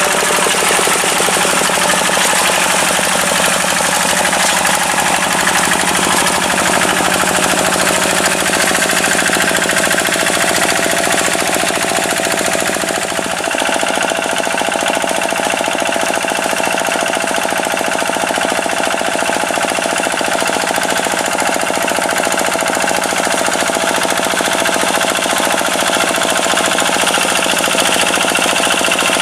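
Rice-field tractor's diesel engine running steadily with a fast, even chatter. It dips briefly about halfway through.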